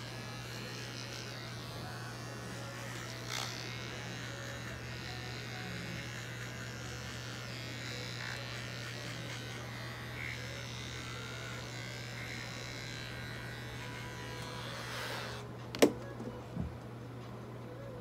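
Small cordless pet trimmer buzzing steadily as it shaves the fur from between a cat's paw pads. A single sharp click, the loudest sound, comes near the end.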